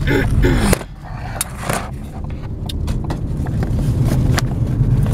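Car cabin noise while driving: a steady low rumble of engine and tyres, with a few light knocks as the dash-mounted camera shifts during a turn.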